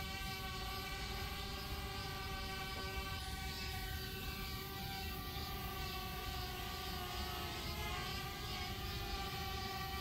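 Background music of steady, sustained chords with no beat, a few notes gliding in pitch about three-quarters of the way through.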